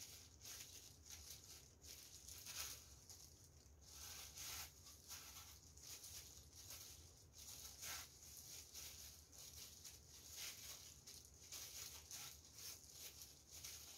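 Faint, irregular rustling and crunching of breadcrumbs as hands in disposable plastic gloves press and roll croquettes in a glass dish to coat them.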